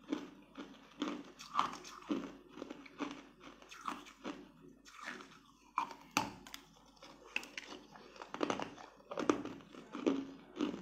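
Close-up eating sounds: biting into and chewing a pink translucent jelly-like sweet, with short crunchy bites and mouth sounds coming irregularly, about one or two a second.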